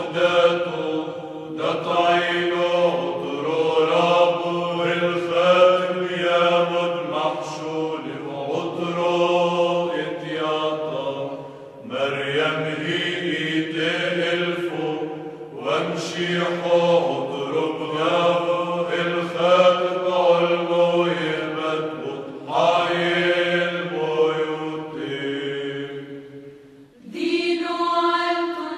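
Maronite incense hymn chanted in Syriac (Aramaic), sung line by line with short pauses between phrases. Near the end the lower voices stop and higher-pitched voices take up the next verse.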